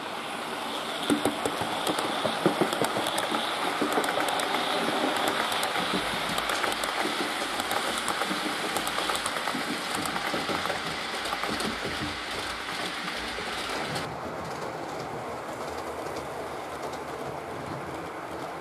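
Model railway train running past on the track: the motor hums and the wheels click rapidly over the rail joints. About two-thirds of the way through the sound changes abruptly and goes quieter.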